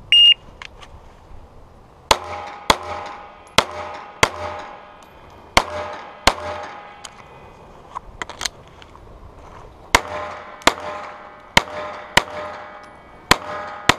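A shot timer gives one short high beep, then a compact carry pistol fires about a dozen shots, mostly in quick pairs about half a second apart, each shot with a short ringing tail.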